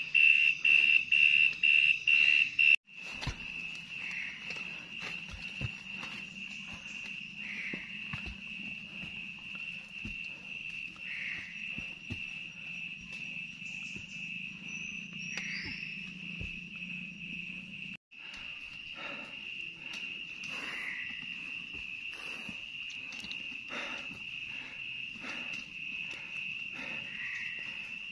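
Rainforest insects calling with a high-pitched, unbroken trill. For about the first three seconds the call is loud and pulses roughly twice a second. After a sudden break it carries on as a quieter steady tone, with a second brief break about two-thirds of the way through.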